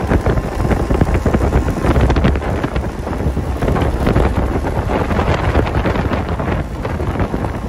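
Wind buffeting the microphone of a camera on a moving Vespa scooter at road speed: a loud, rough low rumble with irregular gusts.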